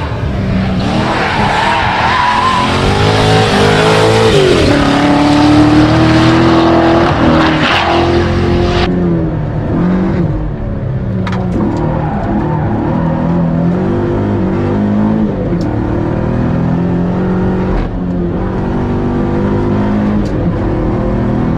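Mazda MX-5 NB's swapped-in 6.0-litre LS2 V8 running hard, its revs climbing and dropping with throttle and gear changes. About nine seconds in, the open-air trackside sound cuts abruptly to the more muffled engine sound heard inside the car's cabin.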